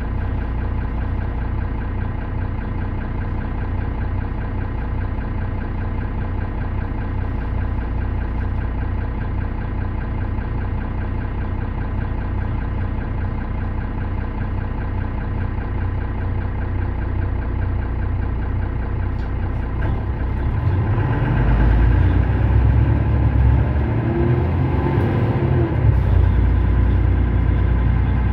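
Mercedes-Benz Citaro O530 city bus engine idling steadily at a stop. About twenty seconds in, a louder, rougher low rumble joins and keeps going.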